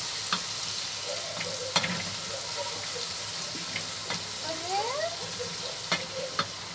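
Crushed garlic sizzling in hot oil in a pot, a steady hiss broken by several sharp clicks of a spoon stirring against the pot.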